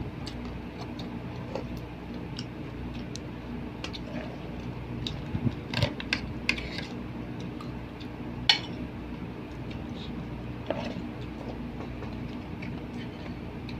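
Scattered clinks of a fork and spoon against plates and bowls during a meal, a small cluster in the middle and one sharper clink a little later, over a steady low hum.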